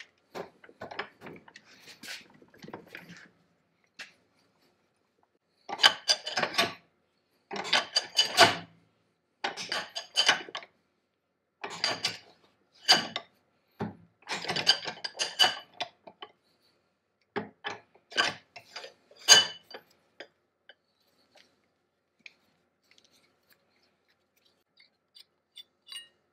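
The threaded handle of an antique centrifugal dental casting machine's crank arm being twisted loose by hand. The brass threads grind and squeak in a series of short turns of about a second each, stopping about three-quarters of the way through.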